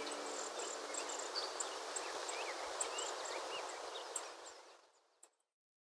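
Natural outdoor ambience of a meadow: a steady hiss with faint, short, high bird chirps and whistles scattered through it, fading out about four and a half seconds in.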